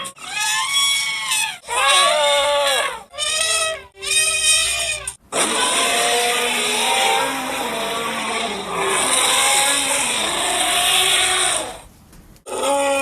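Calls presented as mammoth sounds: four short, wavering, bleat-like cries, then one long, harsh cry that cuts off near the end.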